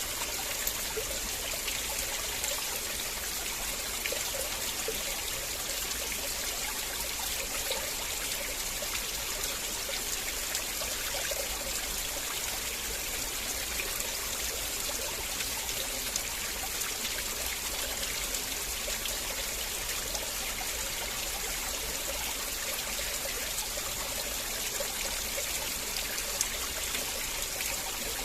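River water flowing steadily over stones, a continuous rushing with many small splashes and trickles.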